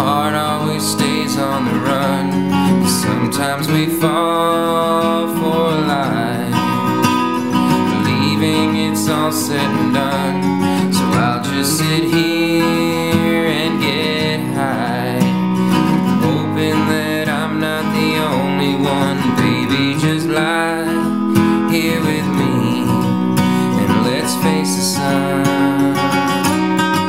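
1968 Gibson SJ acoustic guitar, capoed, played as steady song accompaniment.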